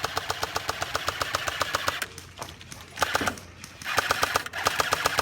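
Airsoft electric gun firing on full auto, a rapid even rattle of about thirteen shots a second. The fire stops about two seconds in, gives a short burst near three seconds, and starts again about four seconds in.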